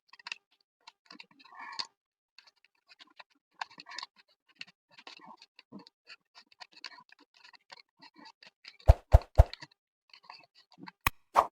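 Sheets of paper being handled and folded by hand, with scattered rustling and crinkling. About nine seconds in comes a quick run of four loud, sharp taps, and two more near the end.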